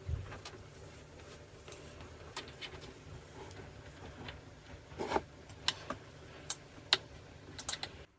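Scattered small clicks and taps of hands working the screws and parts of an Arrma Typhon Grom RC buggy's front shock, more frequent in the second half, over a low steady hum. The sound cuts off abruptly just before the end.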